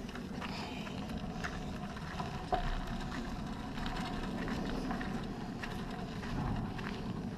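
Beach cruiser bicycle rolling along: steady tyre and wind noise, with scattered light clicks and rattles and one sharper click about two and a half seconds in.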